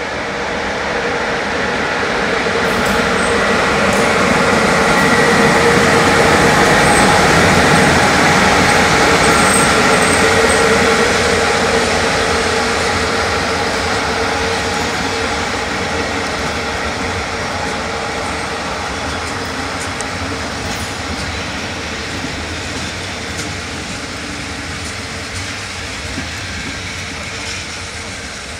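Electric-hauled passenger train of double-deck coaches passing at a station: a steady rumble of wheels on track with a constant hum. It swells to its loudest after about five seconds, then slowly fades as the coaches roll by.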